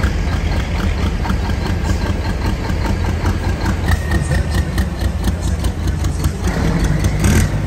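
Heavy diesel race-truck engines idling low and steady as the trucks roll slowly past at close range.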